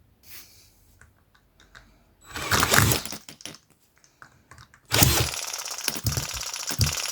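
Small model four-stroke spark-ignition engine being restarted: a short burst about two seconds in, then a few clicks. At about five seconds it catches and runs with a loud, fast rattle and a low thump about twice a second.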